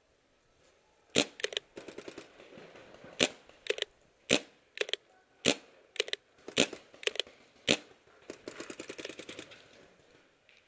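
Paintball markers firing: sharp pops, some single and some in quick strings of two to four, ending in a rapid string of about ten shots a second near the end.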